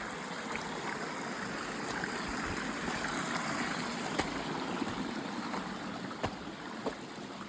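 Warm hot-spring runoff trickling and running over rock in a small canyon stream, a steady rushing sound, with a few sharp clicks or knocks in the second half.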